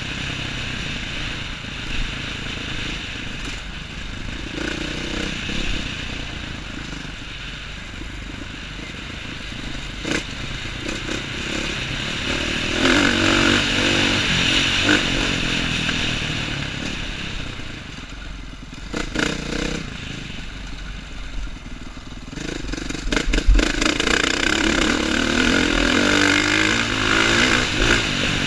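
2015 KTM 450 XC-F four-stroke single-cylinder dirt bike engine running hard along a trail, its note rising and falling with the throttle and louder in two long pulls. It is broken by a few sharp knocks and rattles as the bike hits bumps.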